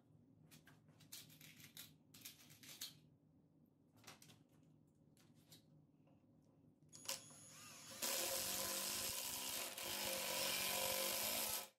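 Light clicks and knocks of a clamp and wood being handled, then a cordless impact driver gives a short blip and runs for about four seconds, driving a pocket-hole screw into the face-frame joint; it is the loudest sound and stops just before the end.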